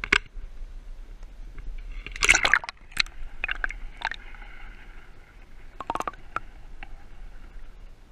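A splash as the camera goes into the water about two seconds in, then muffled underwater gurgling and hiss with scattered sharp clicks.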